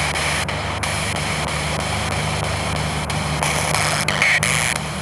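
Spirit box scanning through radio frequencies: a steady hiss of static cut by quick clicks as it jumps between stations, with brief louder snatches of sound, over a steady low hum.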